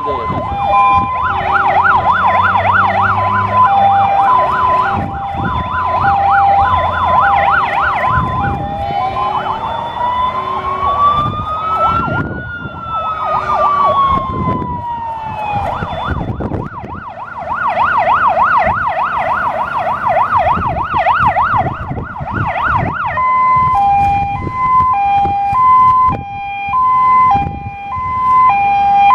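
Fire-engine sirens sounding: a two-tone hi-lo pattern about once a second, overlaid by a fast warbling yelp, then a slow wail that rises for about four seconds and falls back, the yelp again, and the two-tone alone near the end.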